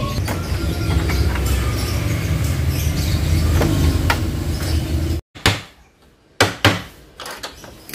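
A steady low rumble that breaks off abruptly about five seconds in, followed by a few sharp knocks and clicks from hands handling the opened split air-conditioner indoor unit.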